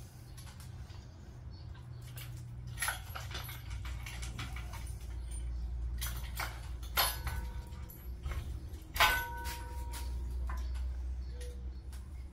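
Metal tools and parts clinking and clattering during hand work on an engine, with two sharp ringing metal clinks about seven and nine seconds in, the second the loudest, over a steady low hum.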